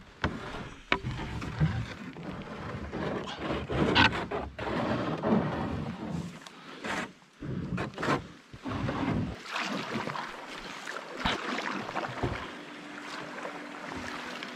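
Canoe paddling on calm water: paddle strokes dipping and pulling with irregular splashing swells and a few sharp knocks. Steady musical tones come in near the end.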